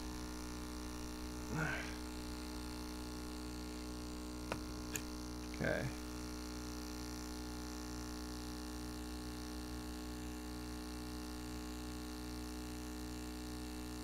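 Small electric airbrush compressor running with a steady hum and a faint regular pulsing, with a couple of light clicks about four and a half and five seconds in.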